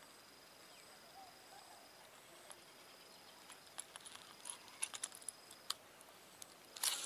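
Baitcasting rod and reel being handled: a scatter of small sharp metallic clicks and ticks, then a louder short rush of noise just before the end.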